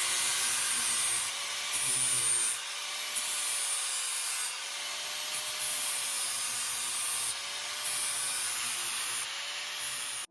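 Power grinder's grinding wheel sharpening the top edge of a FAE mulcher drum knife: a steady metal-grinding rasp over a faint wavering motor whine, easing and rising again in strokes every second or two. The knives are blunt and due for sharpening.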